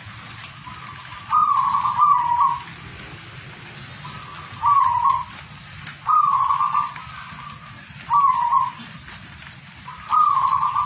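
Zebra dove (perkutut) cooing: five short cooing phrases about every two seconds, the first the longest, over a steady background hiss.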